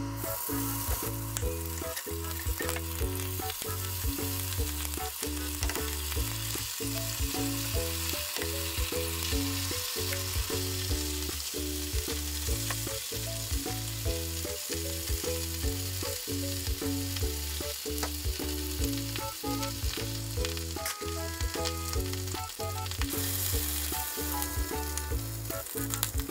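Ham and eggs frying in an oiled frying pan: a steady sizzle that is stronger in the first third and again near the end. Background music with a regular beat plays under it.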